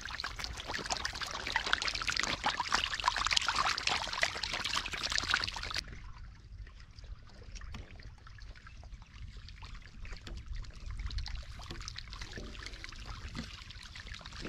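Shallow water splashing and trickling, dense and lively for about the first six seconds, then cutting abruptly to quieter, sparser splashes.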